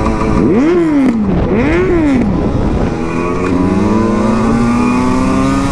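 Two-stroke engine of a 2007 Husqvarna SM 125 supermoto blipped twice, each rev rising and falling within about a second, then pulling steadily with its pitch slowly climbing.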